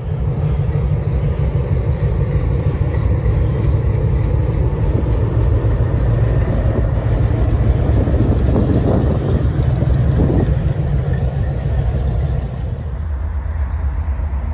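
Diesel locomotive running, a loud steady low rumble that eases off about thirteen seconds in.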